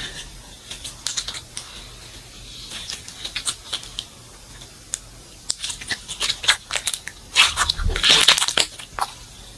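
Hands squeezing and poking slime: a string of small sticky clicks and crackles, thickest in the second half.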